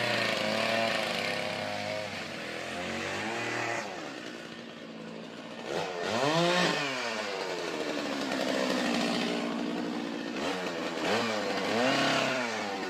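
Two-stroke chainsaw cutting into a large tree trunk while the felling notch is made. The engine pitch rises and falls as the throttle is worked, with sharp surges about six seconds in and again near the end.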